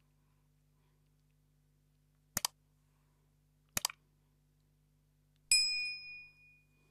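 Sound effects of a subscribe-button animation: two quick double mouse clicks about a second and a half apart, then a bright bell ding that rings out for over a second.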